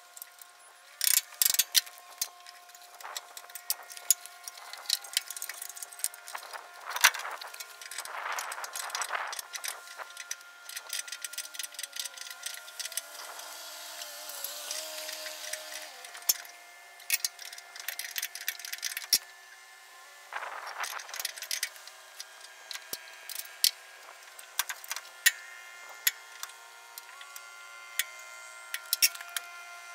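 Hand wrenches clicking and clinking on the metal hydraulic fittings of a disc mower as a leaking elbow fitting is worked loose, with scattered sharp metallic ticks, the loudest about seven seconds in. A few short bursts of rushing noise come in between.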